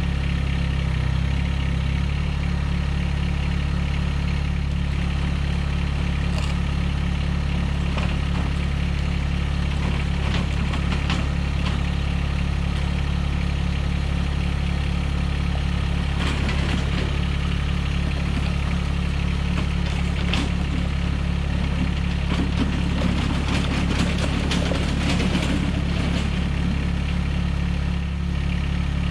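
Mahindra eMax 20S compact diesel tractor engine idling steadily, with a few light knocks and rattles over it.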